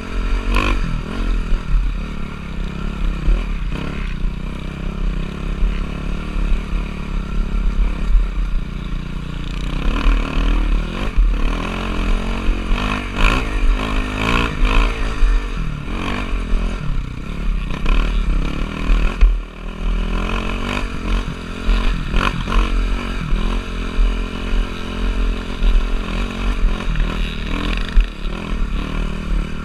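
Motocross dirt bike engine running, its pitch rising and falling as the throttle is worked, with clattering and scraping bits mixed in.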